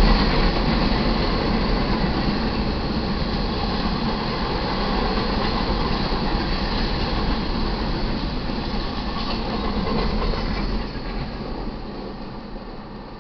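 Freight train cars rolling past on the rails: a steady noise of wheels on track that drops away about eleven seconds in as the end of the train goes by.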